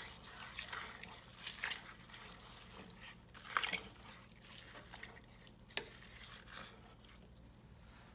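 Water sloshing and dripping in a large pot of chopped collard greens, in irregular splashes, with a sharp click about six seconds in.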